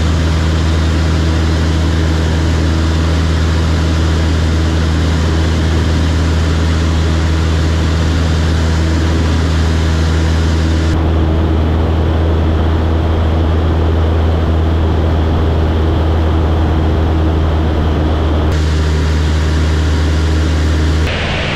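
Light single-engine propeller aircraft droning steadily in flight, its engine and propeller heard from inside the cockpit. A deep, even hum sits under a rushing hiss, and the upper hiss cuts out abruptly about halfway through and returns near the end.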